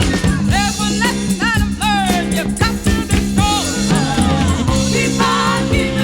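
Soul-funk recording from 1976 playing: a steady bass line and drum beat under sliding, bending melody lines that may be voices.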